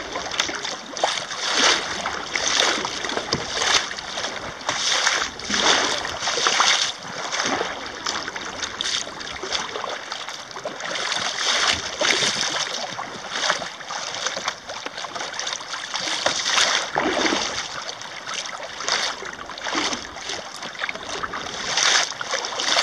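Water splashing and sloshing along a sea kayak's hull as it is paddled through choppy water. The splashing swells in repeated surges about once a second with the paddle strokes.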